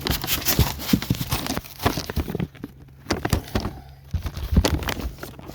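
Cardboard firework cake boxes being handled and moved: irregular knocks, bumps and scrapes of cardboard.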